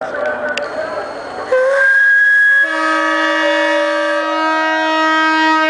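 Alishan Forest Railway steam locomotive's steam whistle blowing as a departure signal. It starts about a second and a half in with a single note, then a fuller, chord-like blast that holds steady to the end.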